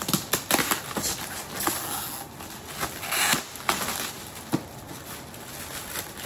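Gift packaging being handled and opened: wrapping crinkling and rustling, with scattered sharp clicks and knocks.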